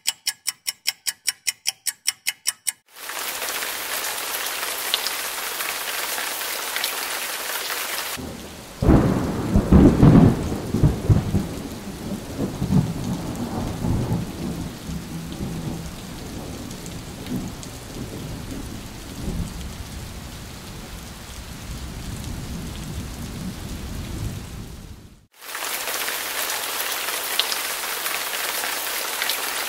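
Thunderstorm: steady rain hiss with a long low thunder rumble that swells loudest about nine to eleven seconds in and slowly fades under the rain. It opens with a rapid run of even pulses, about six a second, for the first three seconds, and the sound cuts out briefly near 25 seconds.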